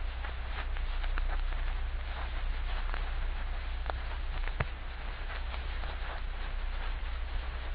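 Old-film soundtrack noise: steady crackle and hiss, with scattered irregular pops and clicks over a low hum.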